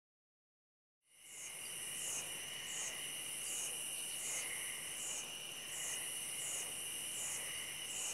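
Silence for about a second, then steady insect chirping: a continuous high trill with a sharper chirp repeating about every two-thirds of a second.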